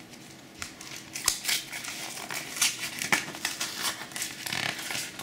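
Plastic shipping envelope crinkling and rustling as hands work it open, with many irregular small crackles and clicks.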